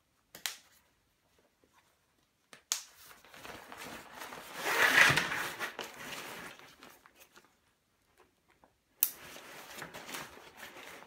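Backpack fabric rustling and crinkling as the pack's roll-top neck is rolled down and pressed by hand, in two stretches, each starting with a sharp click. The first comes about three seconds in and the second about nine seconds in.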